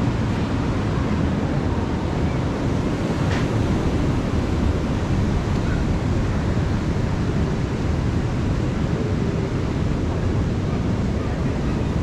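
Steady rush of surf breaking on the beach, mixed with wind rumbling on the microphone.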